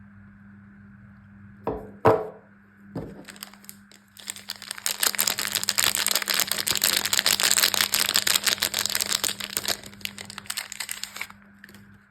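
Soap packaging being torn and crinkled open by hand: a couple of sharp cracks about two and three seconds in, then a dense run of crinkling from about four seconds in until near the end.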